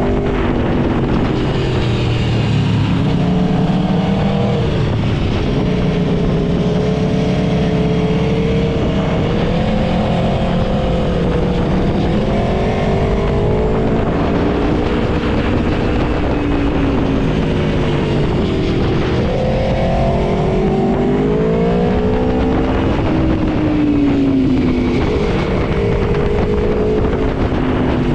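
Aprilia Tuono V4 motorcycle's V4 engine under way, its note rising and falling again and again as the rider accelerates and eases off.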